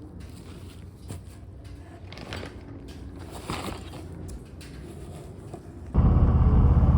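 Faint rustling and small handling clicks, then about six seconds in a loud, steady low rumble starts abruptly: a 2021 Harley-Davidson Low Rider S's Milwaukee-Eight V-twin running on its stock exhaust.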